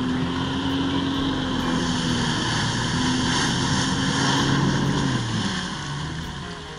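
Jet ski engine running at high revs to pump water up the hose to a flyboard, over the hiss of the water jets spraying. About five seconds in the revs drop and the engine note falls away.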